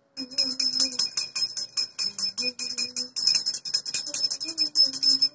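Small brass puja hand bell (ghanti) rung rapidly and continuously, with a woman's voice singing a low, wavering tune under it.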